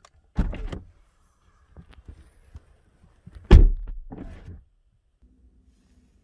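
Car door handled: a clunk of the latch and door about half a second in, a few light clicks, then the door shut with a heavy thunk about three and a half seconds in, the loudest sound, followed by a short rattle.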